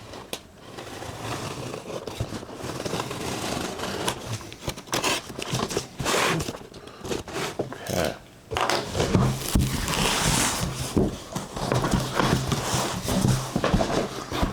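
A cardboard shipping box being opened by hand: tape cut and torn, then flaps and packing material scraped and crinkled in irregular bursts.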